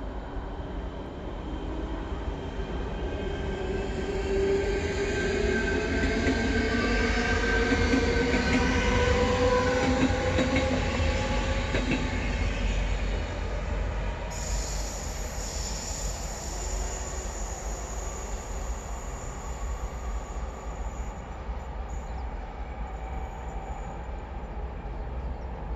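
České dráhy double-deck electric passenger train passing and moving away: its rumble swells to a peak about ten seconds in, with a slowly rising whine, then fades as it recedes. A thin high squeal sets in sharply about halfway through and holds for several seconds.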